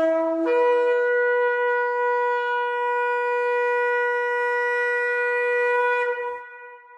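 A shofar blown in one long blast. A short lower note jumps up to a higher note about half a second in, and the higher note is held steady for some five seconds. It stops about six seconds in and dies away in the room's echo.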